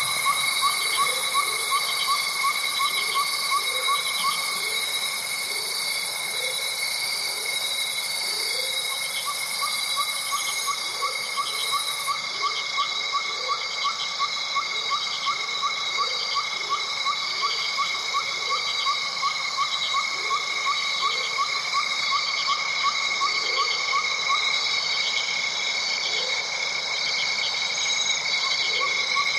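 A layered chorus of calling animals: several steady, high trills keep going together while a lower short call repeats about once a second. One of the trills drops out for a few seconds near the middle.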